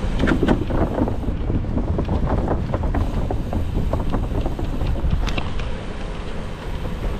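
Strong wind buffeting the microphone with a heavy low rumble, over frequent small clicks and rattles as the bike rides.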